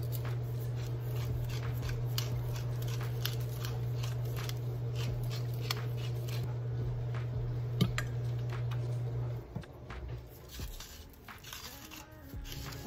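Hand-twisted glass spice grinders grinding salt and peppercorns: a run of quick crunching clicks. Under it runs a steady low hum that drops out about nine and a half seconds in.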